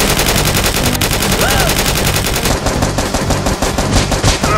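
Automatic-gunfire sound effect: a long, unbroken burst of rapid machine-gun shots, ending near the close.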